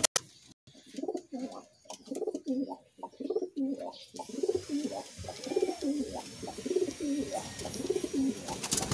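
Racing pigeons cooing over and over, a low rolling coo repeated several times a second, starting about a second in. A brief flutter of wings comes at the very start.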